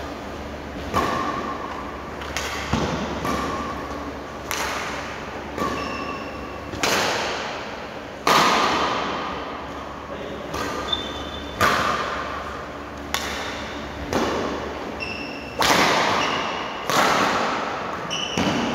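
Badminton rally: rackets striking the shuttlecock back and forth, a sharp hit about every second or so with a short hall echo after each, some hits much louder than others. Brief high squeaks of court shoes on the floor come between strokes.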